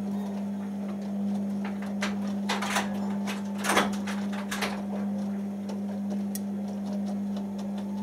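Beko WM6103 washing machine turning its drum during the cotton pre-wash: a steady motor hum with the clicks and swishes of wet laundry tumbling. The hum stops suddenly at the very end as the drum comes to rest.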